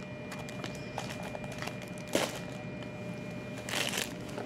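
Handling noises from packaged items: a sharp tap about two seconds in and a short rustle of plastic packaging near the end, with a few light clicks, over a faint steady background whine.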